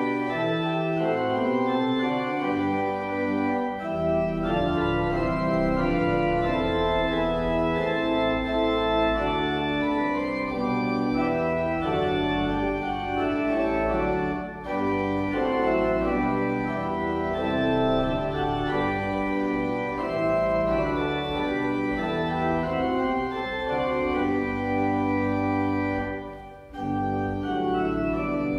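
Church organ playing a hymn in sustained chords that change every second or so, with a brief break between phrases near the end.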